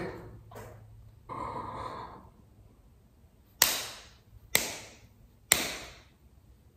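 A man breathing hard: a long breath, then three sharp, forceful exhalations about a second apart.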